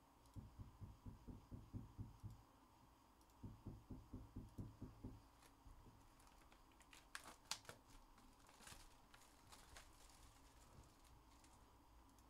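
Faint handling of a cardboard trading-card hobby box: two runs of soft quick thumps, about five a second, then sharp crackling and snapping as the box's cardboard and wrap are torn open.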